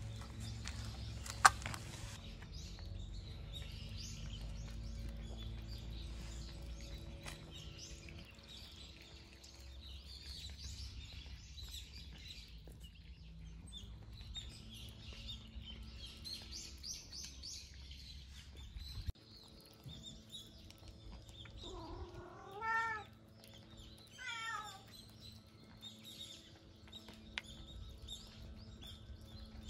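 Cat meowing twice, two short rising-and-falling meows about two seconds apart in the second half. A single sharp click comes near the start.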